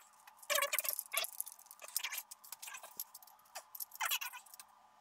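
Metal fittings and the motor housing on a carbon-fibre paramotor frame clicking and rattling as the frame is lifted and handled, in short irregular bursts.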